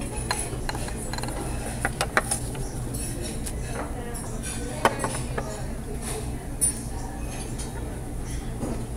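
Scattered sharp clicks and clinks as a glass salt shaker is picked up off the table and shaken over a plate of food, over a steady low room hum.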